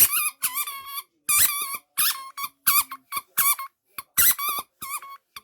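A squeaky dog toy squeaked over and over as a dog chews it: about ten high-pitched squeals in quick, irregular succession, some short and a few drawn out.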